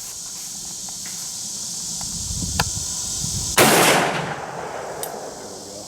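A single shot from a Ruger Single Seven .327 Magnum revolver firing a hot Federal 100-grain jacketed load, sharp, with a short ringing tail, about three and a half seconds in. A light click comes about a second before it.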